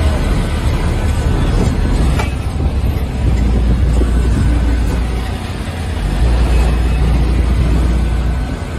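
Car engines running with a loud, steady deep rumble, easing off briefly a little past the middle.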